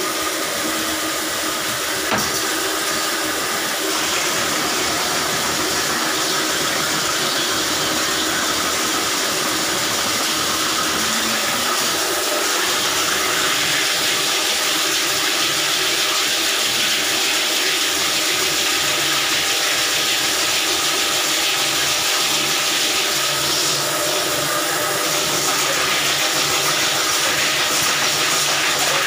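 Electric drum drain-cleaning machine running steadily while its spring cable works in a blocked bathroom floor drain, over water from a hose splashing onto the tile floor. The combined sound is a loud, even hiss with a faint hum underneath.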